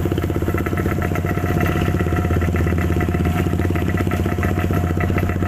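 A small motorcycle engine running steadily at low speed, heard from on board the moving bike, its rapid firing pulses even throughout.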